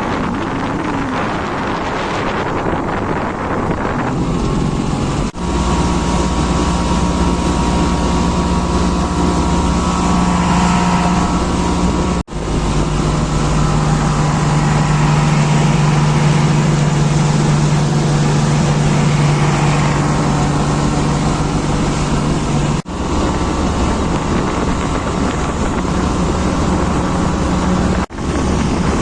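Motorboat engine running steadily, with wind noise on the microphone. The engine hum breaks off abruptly four times and returns at a slightly different pitch each time.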